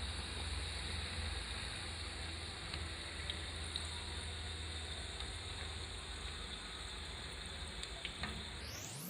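Pakoras frying in hot oil: a steady sizzle over a low hum, fading out near the end.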